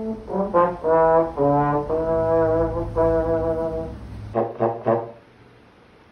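A trombone playing a comic phrase of separate notes, the later ones held long, then a few short quick blasts that stop about five seconds in.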